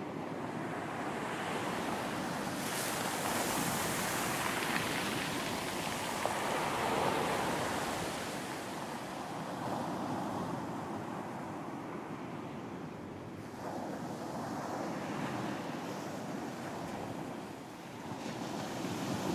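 Ocean surf on a beach: waves breaking and washing in, swelling and easing in several surges, with a quieter lull near the end.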